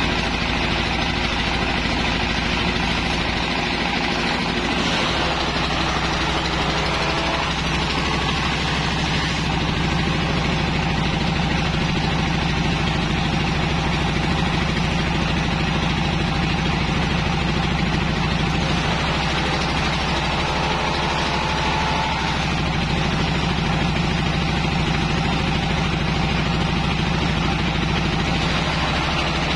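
Engine-driven grass chopper running at a steady speed while grass stalks are fed in and chopped.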